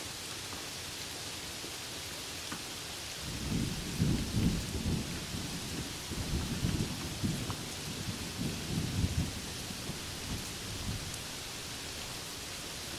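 Steady rain falling, with a long roll of thunder rumbling in about three seconds in, swelling several times and fading out near the end.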